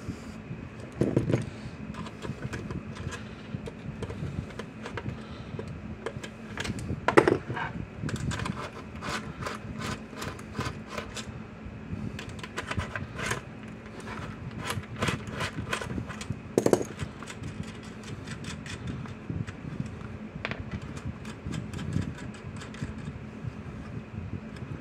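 A hand nut driver clicking and clinking against small metal nuts and washers as they are loosened off the knob shafts of a plastic fence-charger housing, with a few louder knocks of the housing being handled.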